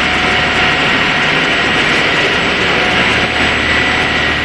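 Motorboat under way: the engine running and the wake churning behind the stern, a loud steady rush with a low steady hum underneath.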